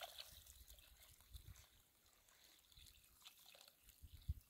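Faint trickle of water pouring from a metal pot onto dry dirt, thinning to scattered drips. A short low thump sounds near the end.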